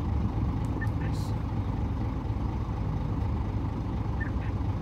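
Diesel engines of a Komatsu PC1250 hydraulic excavator and a mining haul truck running under load with a steady low rumble while the excavator loads overburden into the truck. A few short sharp clicks come about a second in.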